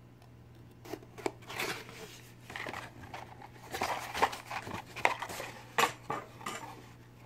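A serrated knife cutting open a cardboard shipping box, then the cardboard flaps being pulled back and packaged items shifting inside: a run of scrapes, rips and sharp clicks starting about a second in.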